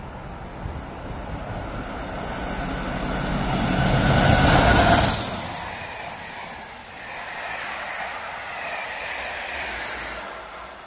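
Class 40 diesel-electric locomotive 40145 approaching and passing at speed, its noise building to the loudest point about four to five seconds in, with a falling high tone as it goes by. The sound then drops to a steadier rumble of the coaches running past on the rails.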